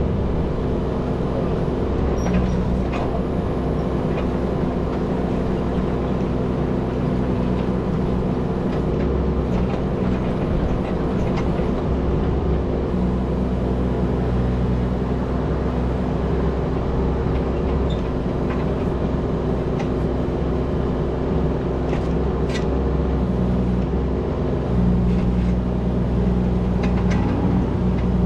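Kubota U17 mini-excavator's diesel engine running steadily under hydraulic load, its pitch and load shifting now and then, with a few faint knocks from the digging.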